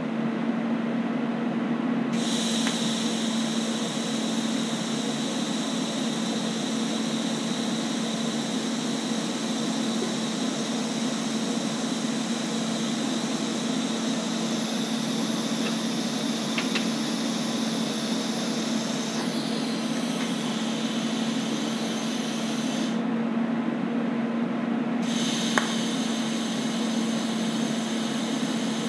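TIG welding arc burning: a steady hiss with a high whine that starts about two seconds in, cuts out for a couple of seconds near the end, then strikes again, over a constant low hum from the welding machine.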